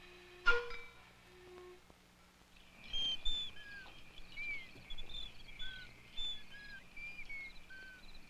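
A few sparse pitched notes, with one sharp struck note about half a second in, then from about three seconds in many birds chirping and whistling in short slurred calls over a steady high drone.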